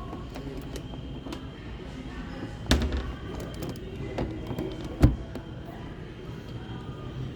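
Two loud thumps about two and a half seconds apart, the first followed by a brief clatter, over a steady background hubbub.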